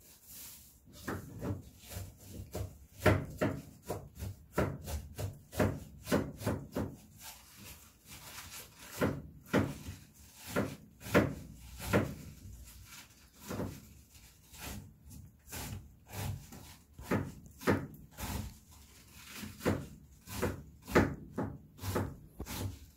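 Pomeranian puppies gnawing and chewing: an irregular run of short, sharp scraping crunches, one to three a second, with brief pauses.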